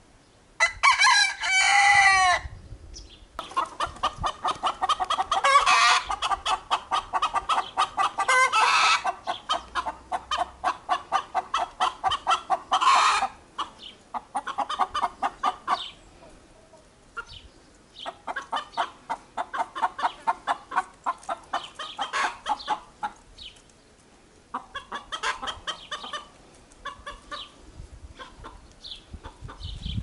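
A rooster crows once about a second in. A long run of rapid clucking follows, thinning out and growing quieter in the second half.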